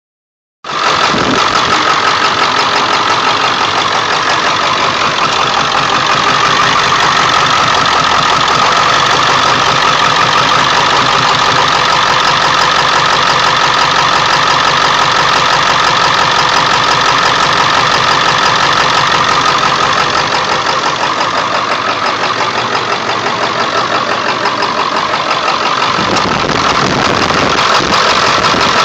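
1999 Ford F-350's 7.3-litre Power Stroke turbo-diesel V8 idling steadily with a fast, even diesel clatter. It is the first start after sitting for days, with the block heater plugged in overnight: a rough idle that the owner says shakes the truck badly, though no check-engine light is on.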